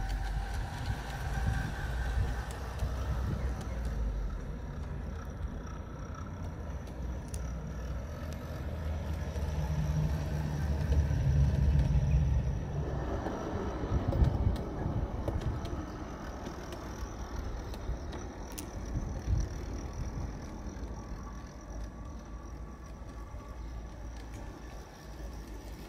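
A model County Donegal diesel railcar pair, 45 mm gauge, running over garden railway track: a low rumble of wheels on the rails with scattered clicks, growing louder as it passes close around the middle.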